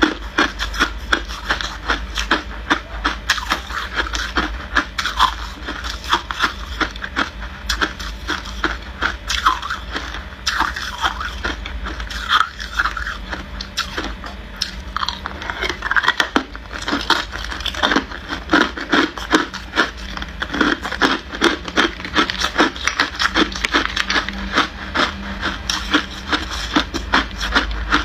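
Hard clear ice being chewed: a steady run of sharp crunches and crackles, several a second.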